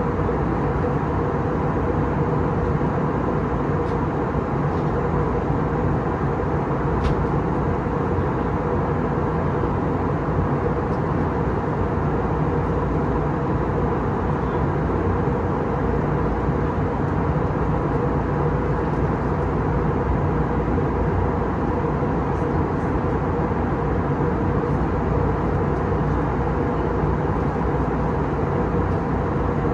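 Steady in-flight cabin noise of an Airbus A321neo heard from a window seat: a constant rush of airflow over the fuselage with the even hum of its CFM LEAP-1A turbofan engines.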